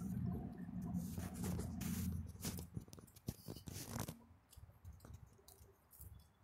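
Rubbing, clicks and crunches from a handheld phone being carried while walking over pavement and dry leaf litter. A low rumble fills the first two seconds, then fades, leaving scattered sharp clicks.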